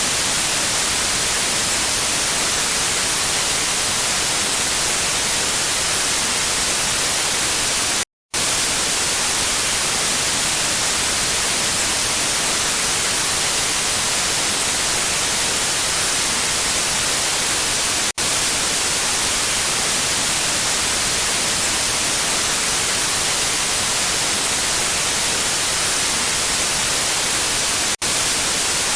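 Steady white-noise static like a TV or radio with no signal: an even hiss, strongest in the high end. About eight seconds in it cuts out completely for a fraction of a second, then resumes unchanged.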